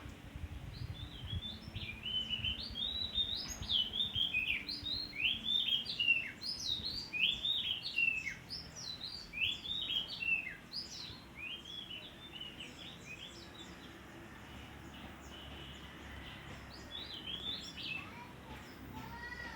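Songbird chirping: a rapid run of short chirps that sweep up and down, busy for the first ten seconds or so, then thinning out, with a brief flurry again near the end.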